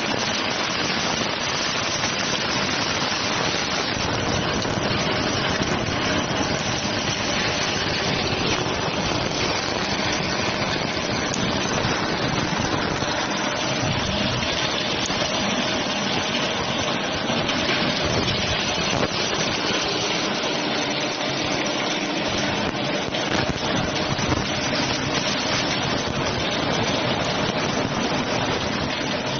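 Electric meat grinder running steadily under load, grinding a whole chicken into mince: a constant, even machine noise with a faint steady hum.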